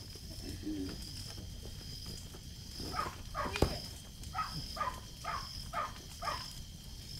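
A bird calls a quick series of about six short falling notes in the second half, with a single sharp pop just before them; a steady high-pitched buzz runs underneath.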